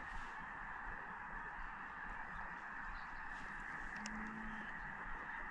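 A huge flock of ducks and geese calling overhead in flight, their many honks and quacks blending into a steady distant din, with one short low note about four seconds in.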